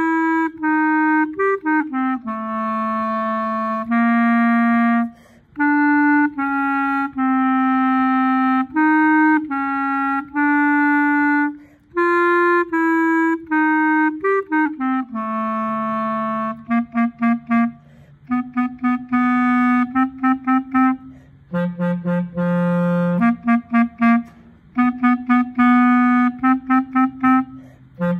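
Soprano clarinet playing a single melodic line: long held notes for the first half, then short detached notes from about halfway on, with brief breaths between phrases.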